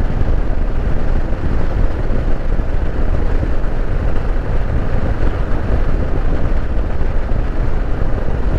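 Kawasaki KLR650's single-cylinder engine running steadily while the motorcycle is ridden along, heard together with road and wind noise.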